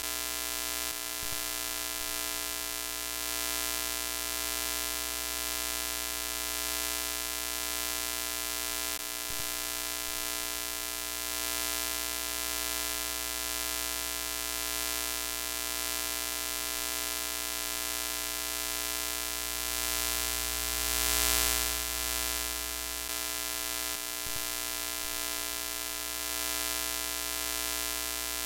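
Steady electrical hum-buzz with a hiss of TV static over it, the sound of a broken, glitching screen. The hiss swells for a moment about three-quarters of the way through.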